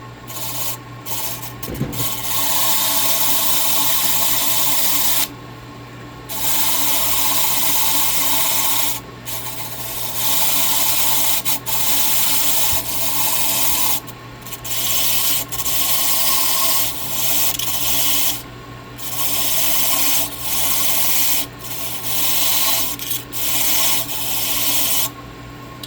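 A freshly cut Tibbe key being deburred against a rotating brush: the brush motor hums steadily, and a rough scraping rasp comes in stretches of a few seconds with brief breaks as the key is pressed to the brush and pulled away.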